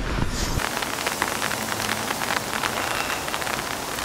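Steady rain: an even hiss of falling drops with many small ticks of single drops striking. In the first half-second there is a low rumble that cuts off suddenly.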